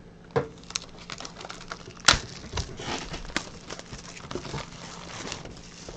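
Packaging of a box of trading cards crinkling and ticking as it is handled and opened, with one sharp click about two seconds in.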